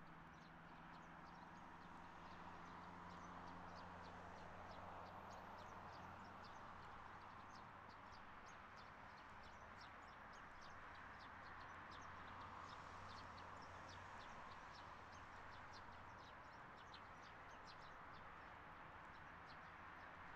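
Faint outdoor ambience: small birds chirping in quick short notes throughout, over a steady low hum and hiss.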